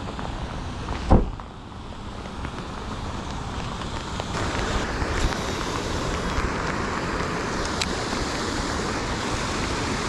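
Steady hiss of rain, growing fuller and louder from about four seconds in, with a single knock about a second in.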